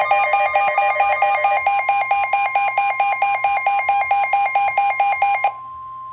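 Weather alert alarm: rapid electronic beeping, about four beeps a second, over a steady tone near 1 kHz, the NOAA Weather Radio 1050 Hz warning alarm tone that signals a warning. The beeping stops near the end, leaving only the steady tone.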